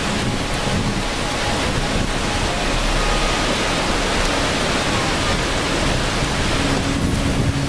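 A steady, even rush of falling water.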